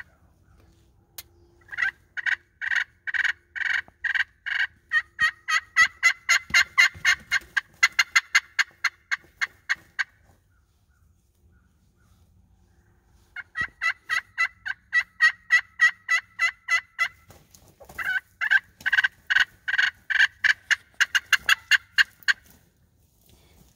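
Turkey yelping in three long runs of short, evenly paced yelps, about five a second, with pauses of a few seconds between; the first run starts slower, about two a second.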